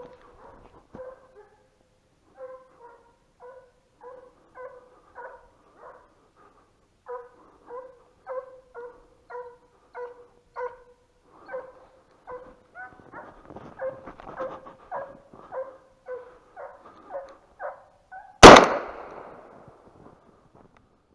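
Hunting hounds baying on a hare's trail: a steady run of barks, about two a second, that grows louder and denser. About eighteen seconds in, a single shotgun shot rings out, the loudest sound, and dies away over about a second.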